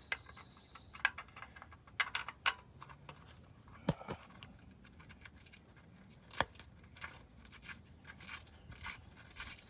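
Scattered light metallic clicks, taps and scrapes of bolts and hand tools being handled while bolts are started into their threads by hand, with the loudest clicks about four and six and a half seconds in.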